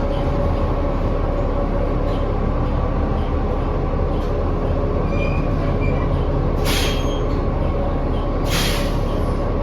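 Interior of a New Flyer XD40 diesel bus under way: a steady whine over a low rumble, with two short hisses about seven and nine seconds in. The whine is an odd, unexplained noise that the rider finds insane for this bus.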